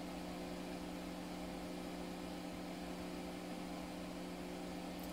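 Steady electrical hum with a few held tones over an even hiss, unchanging throughout: the background of a workbench with instruments running.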